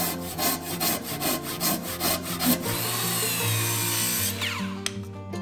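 Japanese hand saw cutting into hinoki cypress joists in quick even strokes, about three a second. Then a circular saw cuts across the stacked joists for about a second and a half before it stops.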